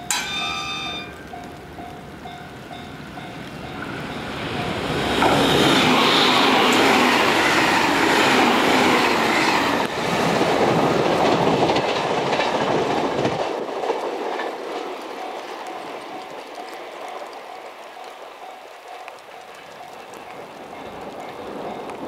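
JR Kyushu 885 series electric train passing: a short horn sounds at the very start, then the train's rush builds and stays loud for several seconds before fading away. Under it, a level-crossing warning bell rings with a steady repeating ding that comes through again as the train fades.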